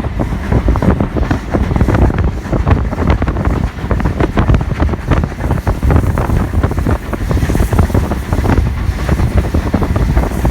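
Heavy wind buffeting on the microphone aboard a moving heritage train, an uneven low rumble with constant gusty thumps.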